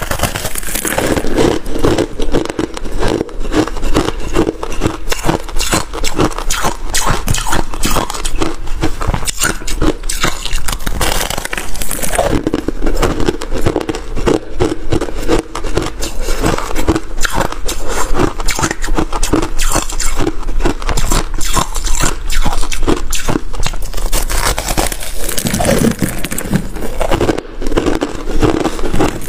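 Crunchy freezer-frost ice being bitten and chewed close to the microphone: a continuous stream of rapid crunches and crackles.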